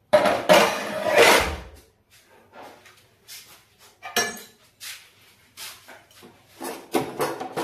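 Kitchen clatter of dishes being handled. A loud rattling clatter comes first, then a few scattered knocks and clinks. It turns busier near the end as the glass bowl of curry on its plate is picked up and a spoon knocks against it.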